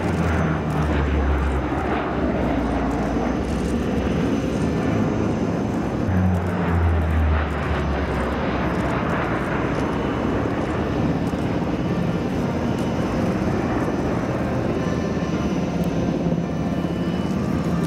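C-130 Hercules four-engine turboprop aircraft running, a steady engine-and-propeller drone with a deep low hum that swells near the start and again about six seconds in.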